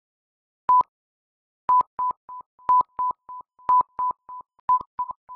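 Film-leader countdown sound effect: a short beep at one steady pitch, once a second. From just under two seconds in, each loud beep is followed by two quicker, softer beeps.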